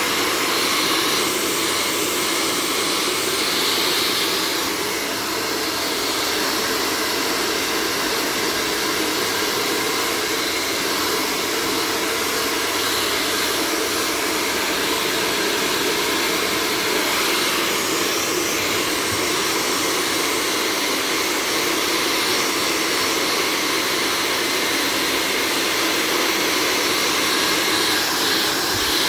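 Blow dryer blowing air steadily onto a wet dog's coat: an even, unbroken rushing hiss.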